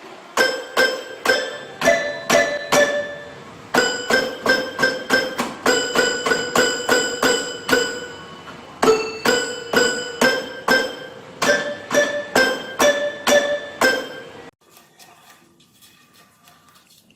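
A small pitched instrument struck over and over, two to three quick notes a second, mostly on one note with a few slightly higher ones, stopping abruptly near the end.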